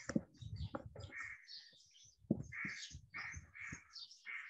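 Crows cawing faintly and repeatedly, about five short harsh calls, with low rustles and thumps of someone moving close to the microphone.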